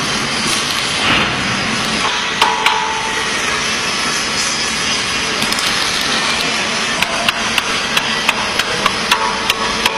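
Hammer blows, a few scattered at first and then a steady run of about three a second from around seven seconds in, some leaving a brief ringing note, over a steady workshop noise.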